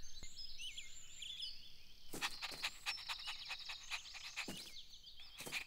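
Quiet cartoon outdoor ambience of high chirping birds. From about two seconds in, a puppy pants in quick short breaths, about three or four a second.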